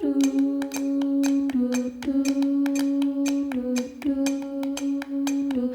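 Background music: a song intro with a held humming voice stepping slowly between a few low notes over a steady clicking beat.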